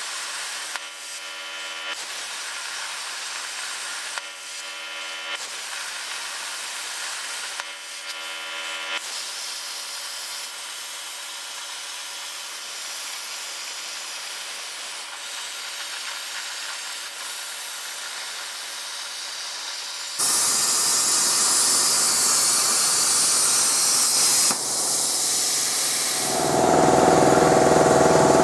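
CNC plasma torch cutting steel plate: a steady hiss, with a set of steady tones switching on and off several times through the first nine seconds. About two-thirds of the way through the hiss jumps abruptly much louder, and near the end a louder steady machine hum with a low tone takes over.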